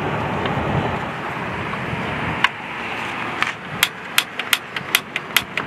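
Igniter of a portable propane grill clicking as the burner is lit: a fast run of about ten sharp clicks over roughly two seconds in the second half. Steady background noise underneath.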